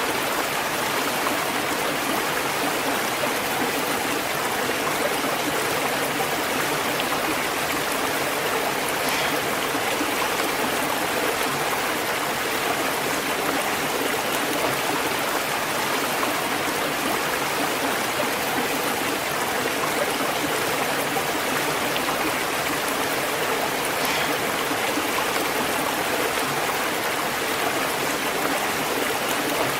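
Waterfall and flowing water: a steady, even rush of falling and running water that keeps the same level throughout.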